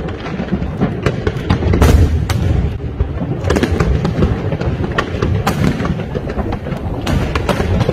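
Fireworks display: aerial shells and low-level fireworks going off in a rapid, continuous barrage of booms and sharp cracks over a steady low rumble, loudest about two seconds in.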